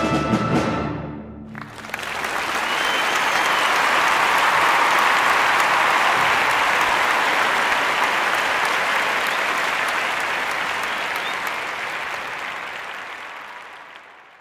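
An orchestra's final chord dies away in the hall within the first second or so. Audience applause then starts about two seconds in, holds steady and fades out near the end.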